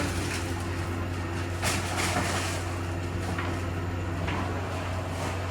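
Large coin-laundry washing machine running: a steady low hum with a few short swishes of the turning drum.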